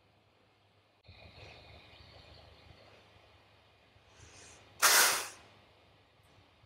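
Sleeping golden retriever lets out one short, loud breath through its nose about five seconds in, just after a fainter breath in, over a soft steady hiss.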